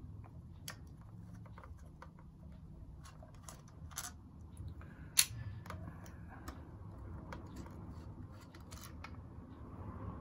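Scattered small clicks and taps as a Stratocaster's plastic pickguard, loaded with its pickups, is handled and lifted off the guitar body, with one sharper tap about five seconds in.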